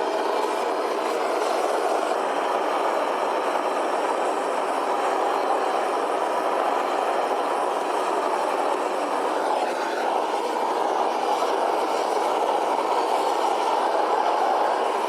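Pan of water and rice being heated: a steady, even rushing noise.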